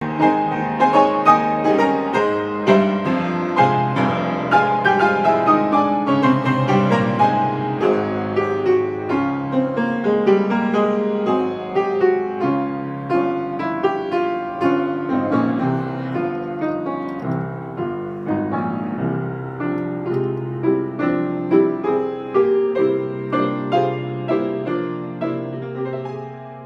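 Solo piano playing a continuous piece of many quick successive notes over a sustained bass, growing gradually quieter toward the end.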